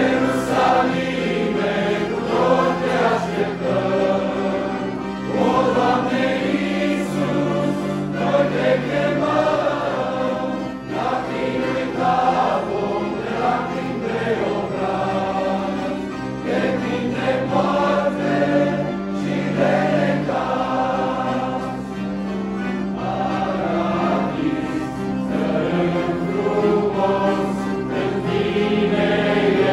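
Youth choir singing a hymn in several voices over held bass notes from an instrumental accompaniment.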